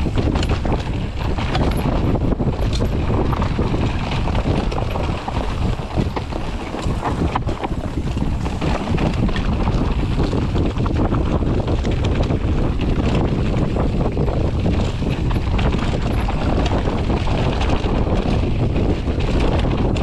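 Wind buffeting an action camera's microphone over the rumble and rattle of an enduro mountain bike riding down a rough dirt trail.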